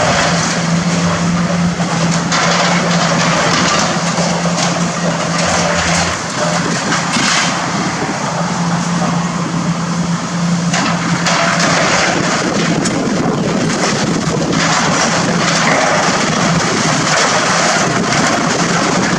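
Hydraulic excavator's diesel engine running steadily under load while its demolition attachment tears into a building, with crunching and scraping of sheet metal and debris and several louder crashes.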